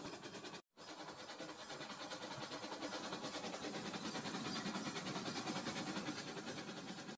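Battery-powered toy trains running on plastic track: a steady whirring clatter of small motors and wheels, broken by a brief dropout about a second in.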